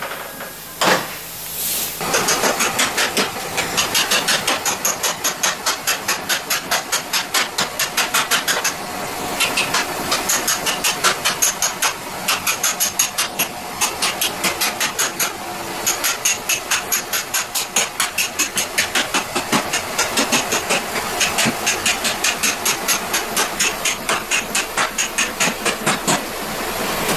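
Rapid, evenly spaced hammer blows, several a second, driving a chisel along the folded hem of a steel truck door skin to separate the old outer skin. A steady hiss runs underneath.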